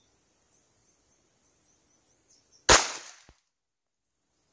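A single shot from a Rock Island 1911 pistol in 9mm, about two-thirds of the way in, with a short ring-out.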